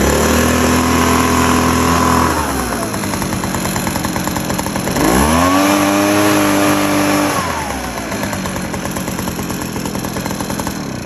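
Small gas engine of a newly bought leaf blower, just started, revving up twice for about two seconds each time and dropping back to a steady idle in between and afterwards.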